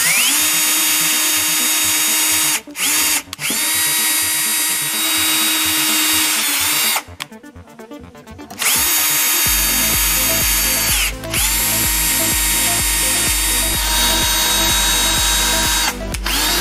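Bosch Professional cordless drill driving a tap to cut M5 threads in an aluminium gearbox housing. The motor whines up to speed, runs, and stops several times in short spells. Background music with a beat comes in about halfway.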